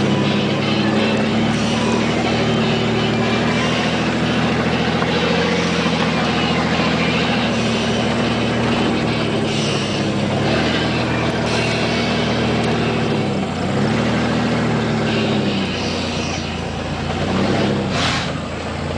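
Engine of a 1993 Chevy S10 Blazer, a 4.3-litre V6, heard from inside the cab while driving a dirt trail. It runs steadily, then the revs drop and pick back up three or four times in the last third as the throttle comes off and goes back on.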